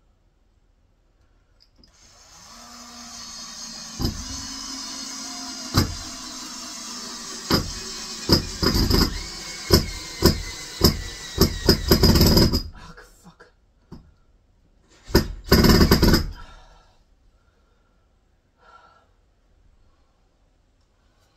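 Cordless screwdriver running under load for about ten seconds as it drives a screw into timber, with a series of sharp knocks along the way, then a second short burst about fifteen seconds in. Its battery is running low.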